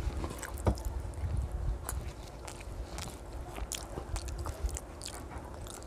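A child chewing a mouthful of rice and fish curry, with many short wet clicks of the mouth, while his fingers mix rice on a ceramic plate.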